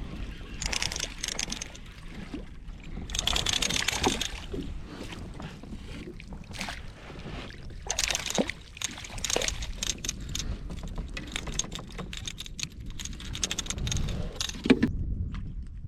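Wind buffeting the microphone with a steady low rumble, and water splashing and slapping against a kayak hull in several hissing bursts. In the second half come many short knocks and clicks.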